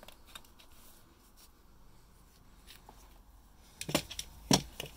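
Quiet room with faint handling ticks, then a short cluster of sharp clicks and knocks about four seconds in, the loudest near the end.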